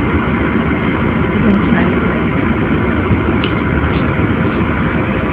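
Loud, steady rushing noise with no clear pitch.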